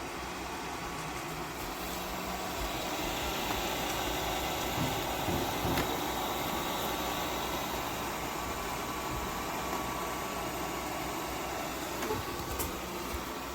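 Steady whirring noise of a running machine, with a faint thin tone and a few light clicks.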